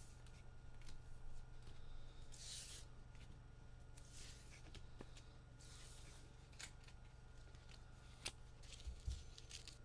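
Faint swishes of trading cards sliding against each other as a stack is sorted by hand, with a few light clicks in the second half.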